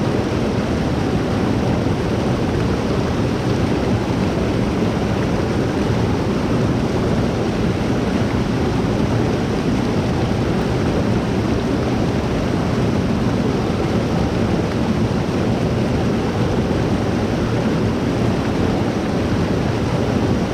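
Rushing water of a rain-swollen, blown-out creek: a steady, loud, even roar of heavy flow.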